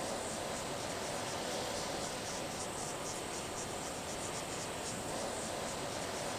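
Insects chirping in quick, high-pitched repeated pulses over a steady hiss of bush ambience.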